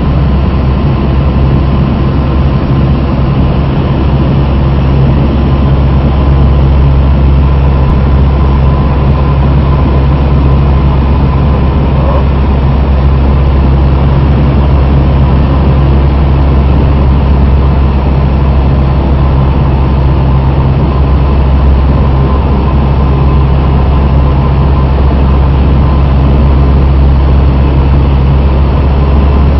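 Cessna 172's single piston engine and propeller running steadily in flight, heard from inside the cabin: a loud, even, low drone that holds the same pitch and level throughout.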